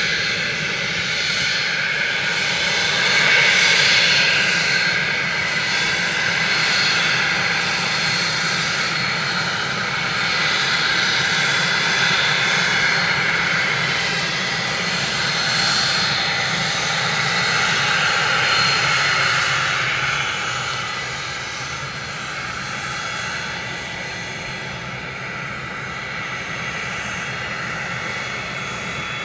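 Twin Pratt & Whitney Canada JT15D turbofan engines of a Cessna Citation II/SP business jet running on the ground: a steady whine and rush with thin high tones on top. It drops a little in loudness about twenty seconds in.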